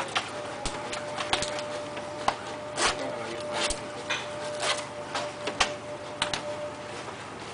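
A leather jacket being handled and smoothed out on a table: rustling with many scattered short sharp clicks, over a thin steady tone.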